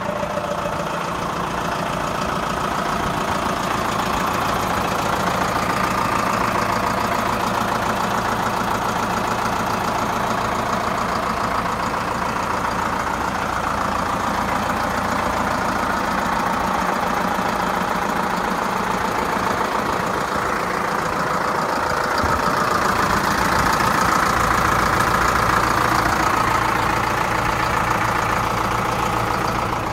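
Zetor Forterra 130 HSX tractor's diesel engine running steadily at idle, growing slightly louder about two-thirds of the way through.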